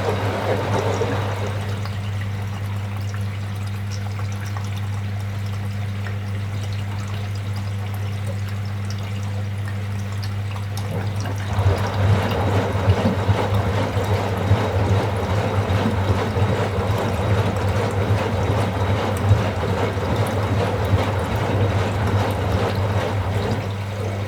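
Washing machine running in its wash cycle, with a steady low hum. About halfway through, the drum starts turning and the clothes and water slosh in it for some ten seconds, then it eases off again near the end.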